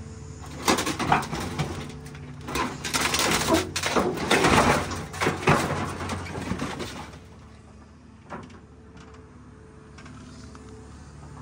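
Excavator bucket crushing a scrapped car body: loud crunching and cracking of metal from about a second in until about seven seconds, loudest around the middle, over the machine's steady engine hum. Then only the engine hum runs on as the bucket lifts, with one short click.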